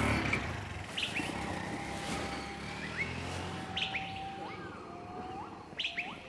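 Birds chirping: short chirps and quick rising whistled calls every second or so, over a faint steady background hiss.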